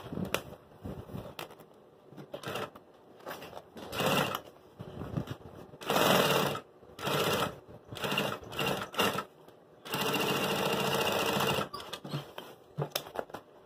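Sun Special industrial sewing machine stitching a bag seam in a series of short stop-start bursts, then one steady run of about two seconds near the end.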